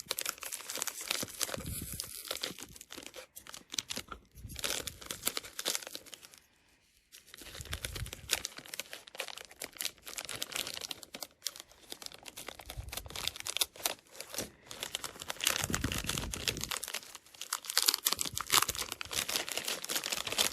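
Crinkling and tearing of a sealed cardboard mystery pack being opened by hand: a dense run of crackles with a brief pause about six and a half seconds in.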